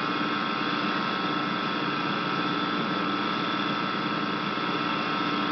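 Steady electrical hum with hiss and no other events.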